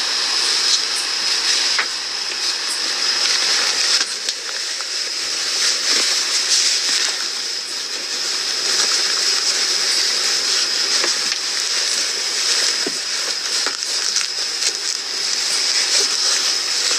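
Fabric rustling and rubbing against a body-worn camera's microphone over a steady hiss, with scattered faint ticks.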